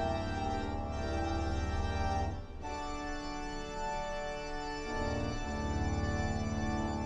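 Electric pipe organ played with full-organ (tutti) registration: sustained chords over a deep pedal bass. The chords change about two and a half seconds in, after a brief lift, and again about five seconds in.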